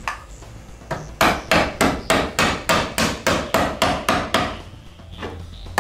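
Rubber mallet tapping the top rail of a wooden ready-to-assemble base cabinet frame, a quick even run of about a dozen light knocks, about three a second, driving the joint together. A fainter knock or two comes just before the run.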